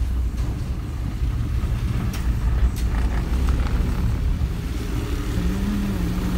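Motor vehicle running: a steady low engine and road rumble, with a couple of light clicks about two seconds in.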